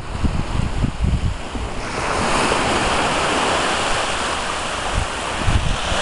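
Small waves breaking and washing up a sandy beach, with wind buffeting the microphone. The surf's hiss swells up about two seconds in and stays steady; low gusts of wind rumble at the start and again near the end.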